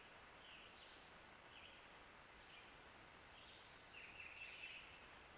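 Near silence: faint outdoor ambience with a few faint, scattered bird chirps.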